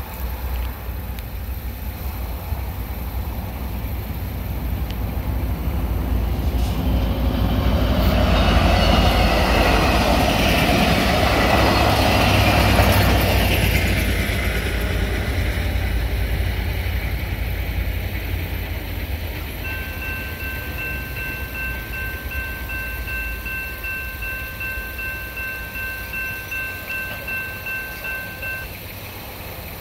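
Amtrak Piedmont passenger train, led by an EMD F59PH locomotive, passing through the crossing. The rush of the train swells about six seconds in, is loudest around ten seconds, and fades away with no horn sounded. Later the crossing's electronic bell rings steadily in a pulsing rhythm for several seconds and then stops.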